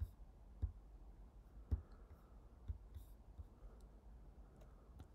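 Faint, sparse clicks from a computer keyboard and mouse, about six of them at roughly one a second.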